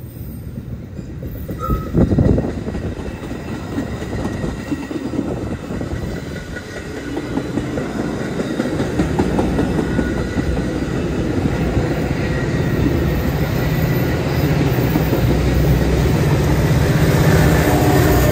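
Metra commuter train of bilevel passenger cars passing close by, wheels clattering over the rails, arriving loudly about two seconds in. The rumble builds toward the end as the diesel locomotive pushing at the rear comes by.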